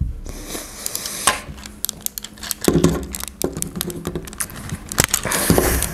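Hard plastic parts of a small Transformers action figure clicking and rattling as they are pried apart by hand during transformation. Under the clicks is a low rustle of hands and clothing rubbing near a clip-on microphone, with a couple of duller knocks.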